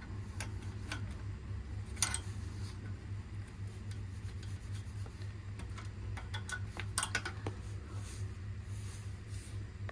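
Steel wrench clicking against the nut and arm of an old bicycle's rear caliper brake: a few sharp metal clicks, the loudest about two seconds in and twice around seven seconds in, over a steady low hum.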